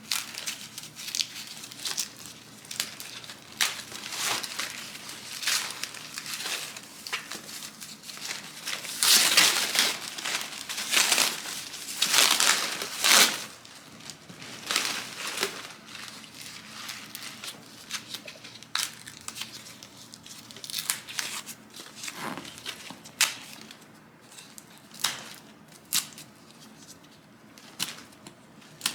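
Paper and plastic packaging being crumpled, torn and pulled off by hand in irregular rustling bursts. It is loudest about a third of the way in, then eases to scattered crinkles.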